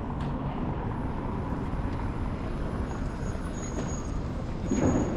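City street traffic running past, a steady low rumble of engines and tyres, with a faint high whistle in the second half and a short louder rush of noise near the end.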